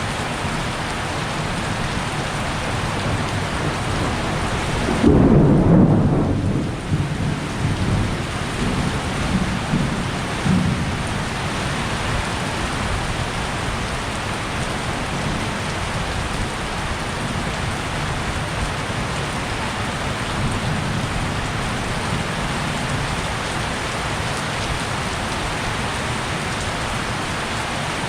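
Heavy rain falling steadily, with a loud clap of thunder about five seconds in that rolls on in fading rumbles for several seconds.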